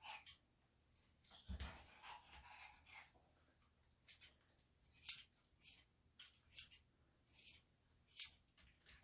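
Grooming scissors snipping through a Shih-Tzu's coat: a run of short, sharp, separate snips, about one a second, mostly in the second half.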